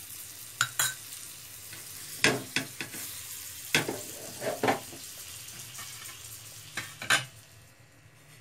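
Butter sizzling on a hot flat griddle (tawa), a steady hiss that dies away near the end. A spoon clicks and knocks against the griddle and bread about eight times as butter is dropped on the slices.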